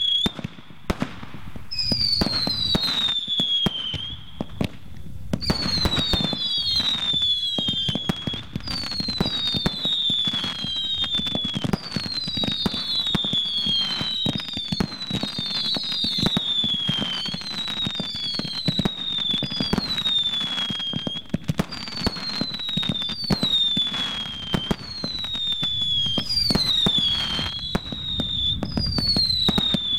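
Fireworks barrage: a rapid string of whistle effects, each a high whistle falling in pitch for about a second, firing every second or two and often overlapping. Underneath runs a dense stream of launch thumps, pops and crackling bursts.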